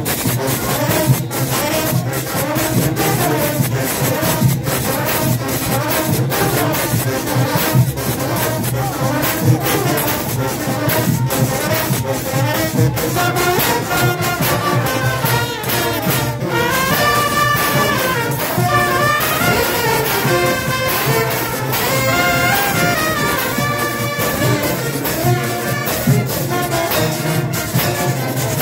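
Junkanoo band playing: a fast, dense beat of drums and cowbells runs throughout, and a brass horn section comes in over it about halfway through with a repeated melody.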